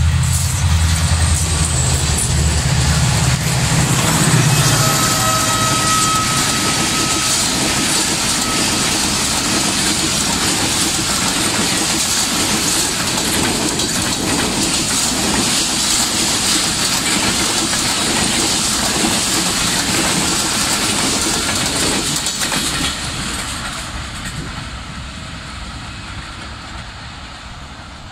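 Passenger trains hauled by HGMU-30 diesel-electric locomotives passing close on parallel tracks. A deep engine drone is heard for the first few seconds. Then the coaches roll by with a dense rumble and clickety-clack of wheels over the rails, fading away over the last several seconds as the train recedes.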